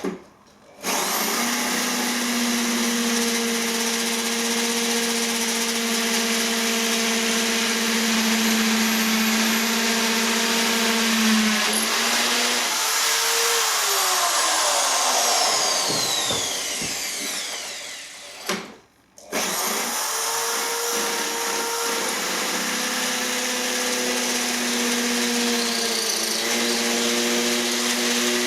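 Wickes 1050 W corded hammer drill running at speed with a steady whine. About halfway through, the motor's pitch falls away as it slows to a stop. Less than a second later it starts again and runs steadily to the end.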